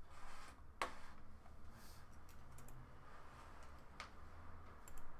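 Sharp computer clicks: two distinct clicks, about a second in and again near four seconds in, with a few fainter ticks over quiet room tone.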